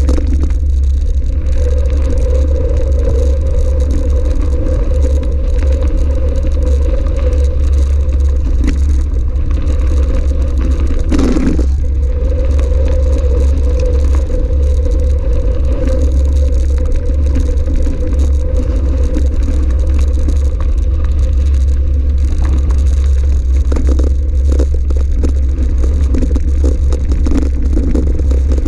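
Steady rumble of wind buffeting an action camera's microphone as an electric mountain bike rides a gravel track, with the clatter and rattle of the tyres and bike over loose stones. A single knock from a bump comes about eleven seconds in.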